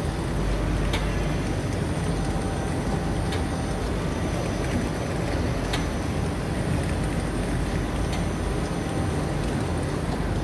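Industrial printing machine running with a steady, dense mechanical rumble and a few faint clicks.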